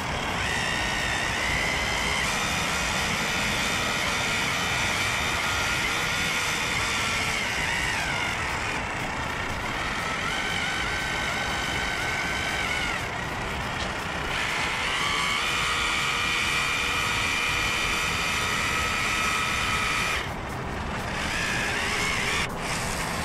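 Cordless urethane caulking gun running as it lays a bead of urethane along the edge of a replacement quarter glass: a steady motor whine that sags in pitch and picks up again a couple of times and stops briefly near the end.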